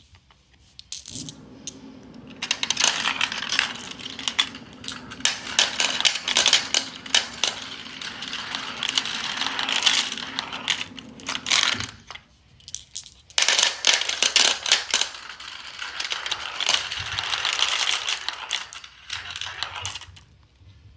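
Marbles rolling and clattering down a marble run: a dense stream of small clicks and rattles with a steady low hum under the first bout. It comes in two bouts, the first from about a second in to about twelve seconds, the second from about thirteen and a half seconds until shortly before the end.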